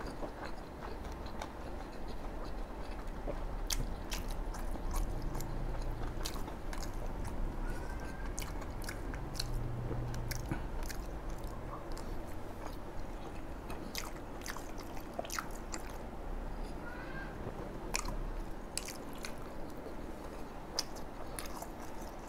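Close-miked chewing of bún đậu mắm tôm (rice vermicelli, fried tofu and pork), with many scattered small wet mouth clicks.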